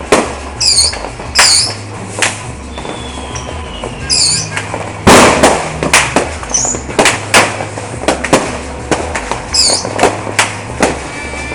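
New Year's fireworks and firecrackers going off: many scattered sharp bangs, the loudest about five seconds in, with a few short high whistling squeals and one slowly falling whistle. Music plays underneath.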